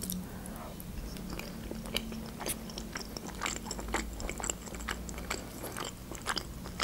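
A person chewing a mouthful of soft, creamy baked mushroom julienne, with many small, irregular mouth clicks.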